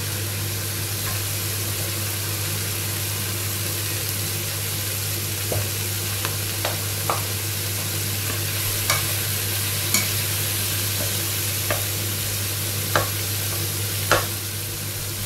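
Sliced peppers, onion and chili sizzling in a frying pan while being stirred, with a spatula clicking against the pan now and then, mostly in the second half.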